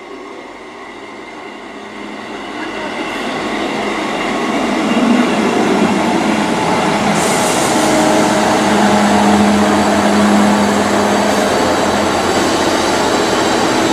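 Class 158 diesel multiple unit pulling into the platform, its diesel engine growing louder as it draws near and then running steadily. A high hiss joins suddenly about seven seconds in.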